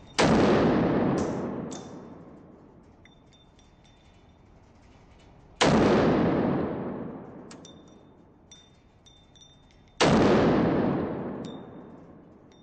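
Three single pistol shots from a Colt 1911 Commander, fired slowly about four to five seconds apart. Each shot rings out with a long echo off the concrete of the indoor range. Faint metallic clinks sound between the shots.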